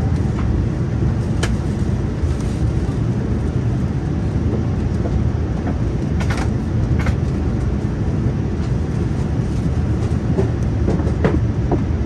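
Steady low rumble of a moving vehicle heard from inside, with a few faint clicks at irregular intervals.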